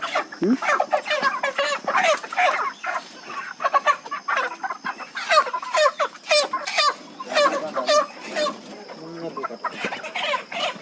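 A crowded flock of broiler chickens clucking and squawking over one another, many short calls in quick succession.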